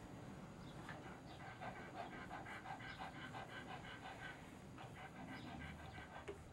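A dog panting, a steady run of quick, even breaths.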